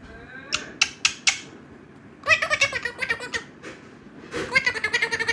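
Pet parrot calling: a few short high calls, then two rapid runs of choppy, pitched notes, the first about two seconds in and the second near the end.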